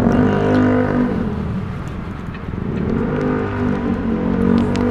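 Car engines running close by, their pitch sinking during the first second, then swelling and rising again about two and a half seconds in as a vehicle moves off.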